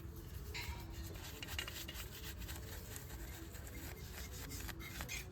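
Brush scrubbing oily grime off a motorcycle engine casing, a steady rubbing scrub.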